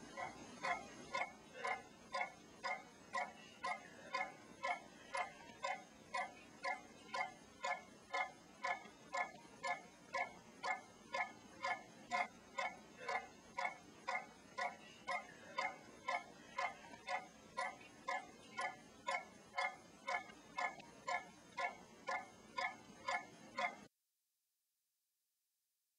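Steady, even ticking, about two ticks a second, that cuts off suddenly near the end into dead silence.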